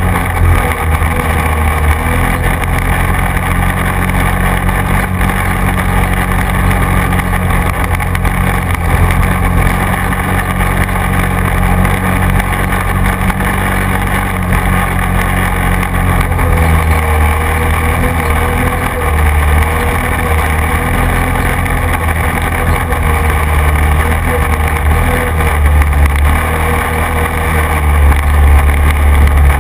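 Quad bike engine running steadily while riding over a grassy track. Its note drops a little about halfway through and grows louder near the end.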